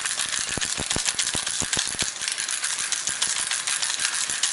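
Pepper mill grinding peppercorns over raw chicken: a continuous dry crackle of many fine rapid clicks that stops abruptly at the end.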